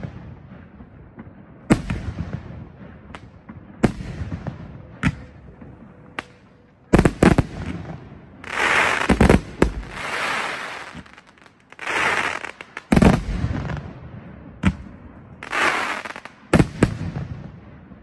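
Consumer firework cake firing its shots: a string of sharp bangs as the shells burst overhead, with the shots coming thicker in the second half, where three stretches of crackling lasting a second or two mix with the bangs.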